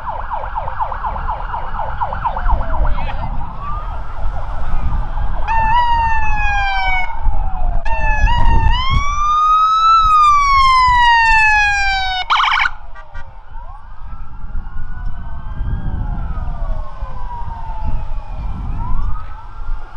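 Emergency vehicle sirens passing: a fast warbling yelp at first, then a loud siren wail that rises and falls, peaking about ten seconds in. A short horn blast follows, then several fainter wails overlapping.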